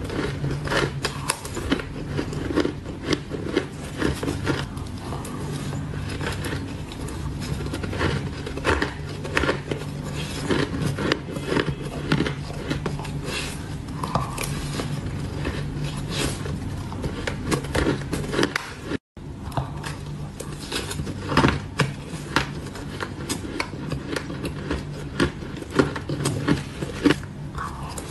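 Crunching and chewing of spoonfuls of shaved ice close to the microphone: a dense run of crackling crunches, with the spoon now and then scraping against a metal bowl.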